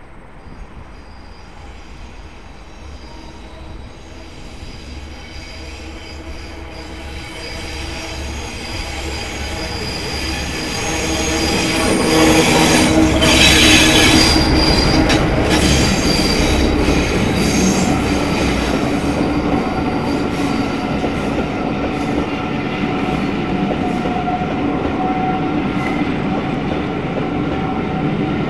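Diesel locomotive hauling a train of coaches approaches and passes close by. Its engine and wheel noise grow louder to a peak about 13 seconds in, with high wheel squeal from the curved track. The coaches then keep rolling past with steady wheel noise.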